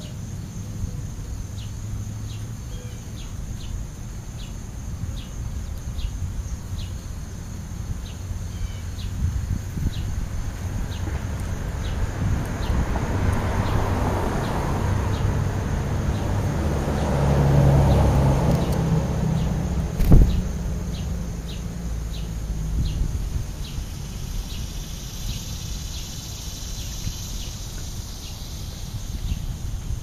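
Insect chirping steadily, about three short high chirps every two seconds, over a low outdoor rumble. A wider rushing noise swells and fades through the middle, and a single sharp knock comes about two-thirds of the way in.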